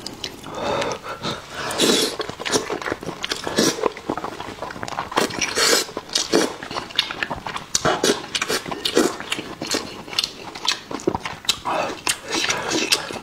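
Close-miked eating of saucy braised fish: wet chewing, lip smacks and slurps coming in quick, irregular succession.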